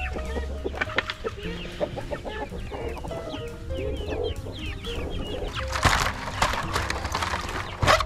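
Free-range hens clucking and calling around the coop, over soft background music, with a short rustling clatter about six seconds in and another at the very end.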